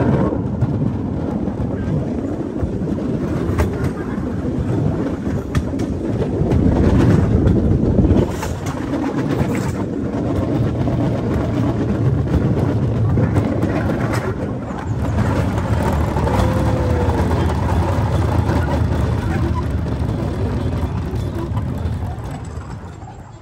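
Small rail cart (Battambang lory) running along the track: a steady rumble and clatter of wheels on rails, with sharp clicks over the rail joints. It quiets near the end as the cart slows.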